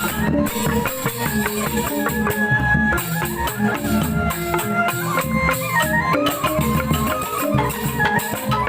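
Joged bumbung music: a Balinese bamboo gamelan playing a busy run of struck pitched notes over steady percussion.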